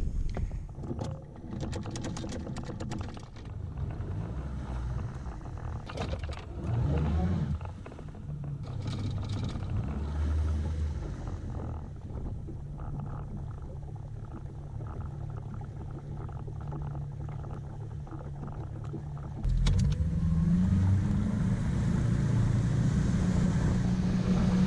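Small boat's outboard motor running at low speed, with a few knocks and clatters in the first seconds and a brief rise in pitch about seven seconds in. About twenty seconds in it is throttled up, running louder and higher.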